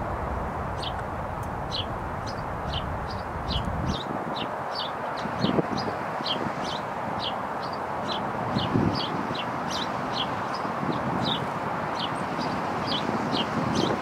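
Small songbirds chirping: a steady run of short, high, down-slurred chirps, about two or three a second, over a low background rush. Two brief low sounds stand out about five and a half and nine seconds in.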